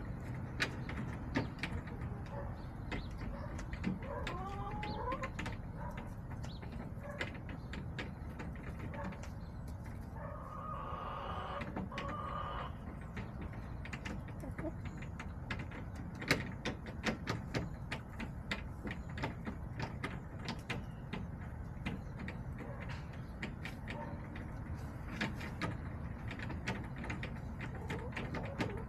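Backyard hens calling softly: a short wavering call about four seconds in and a longer, steadier call lasting about two seconds near the middle, over a steady low background hum with many scattered light clicks and taps.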